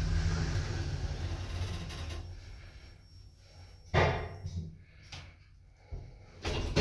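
Kone Monospace elevator with an EcoDisc gearless machine running up the shaft, its low rumble fading away over about three seconds as the car slows and stops. About four seconds in comes a single sharp thump, followed by a few faint knocks.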